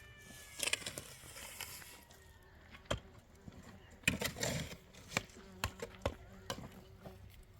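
Irregular knocks and scraping noises, with the loudest scrape about four seconds in.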